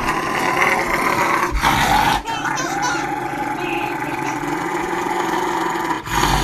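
A dog growling in long, nearly unbroken stretches, with short breaks about one and a half, two and six seconds in.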